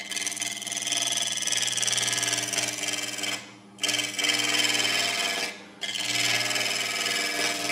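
Half-inch spindle gouge cutting spinning cedar of Lebanon on a wood lathe, in three cuts separated by short breaks about three and a half and five and a half seconds in, over the lathe's steady hum.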